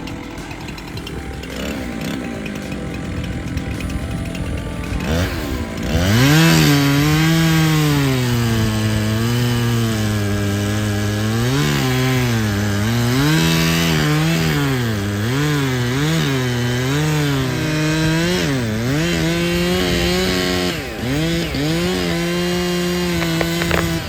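Chainsaw cutting into a tree: from about six seconds in the engine runs at full throttle, its pitch dropping again and again as the chain bogs in the cut and rising as it frees, then holding steady near the end.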